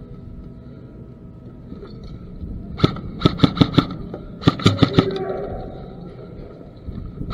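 Airsoft gun firing. A single shot comes about three seconds in, then quick strings of four or five shots, about six or seven a second: two strings close together and another near the end.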